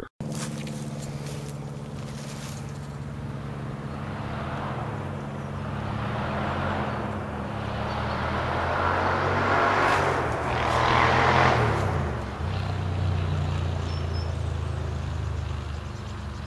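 Motor vehicle engine running, with a rushing noise that swells to a peak about ten seconds in and then falls away, as a vehicle passing by.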